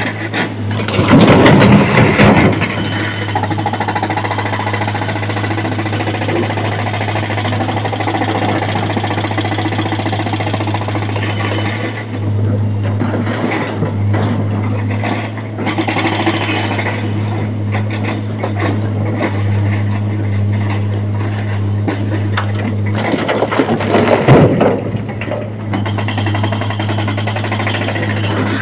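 Broken rock crashing loudly into a steel dump-truck body as an excavator bucket empties, about a second in and again near the end. Between the loads, the machines' engines keep up a steady low hum.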